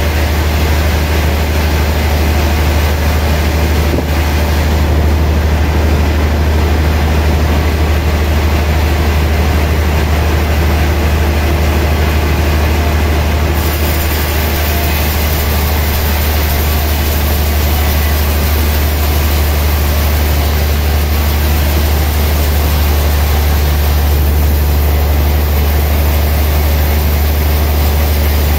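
Large vertical band sawmill running with a deep, steady hum while its blade spins between cuts.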